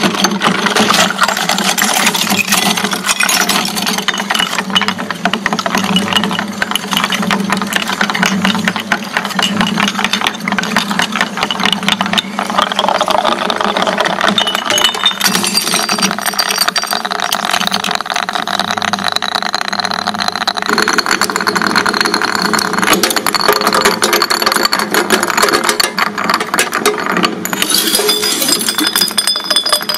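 Twin-shaft shredder running, its cutter discs grinding through a block of jelly and the glass bottles set in it: a dense, continuous crunching and cracking of breaking glass over a steady motor hum.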